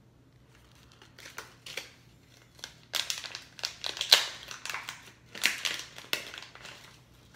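Plastic lure package crinkling and crackling as it is handled and opened, in irregular sharp crackles that start about a second in and are loudest in the middle.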